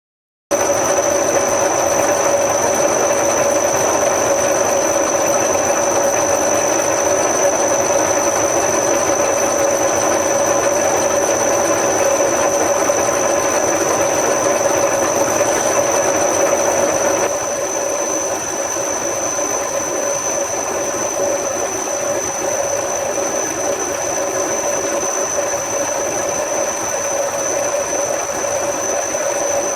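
A machine tool runs steadily as it cuts the old copper windings out of an electric motor body, with a steady whine over the cutting noise. The sound starts abruptly and gets slightly quieter just past halfway.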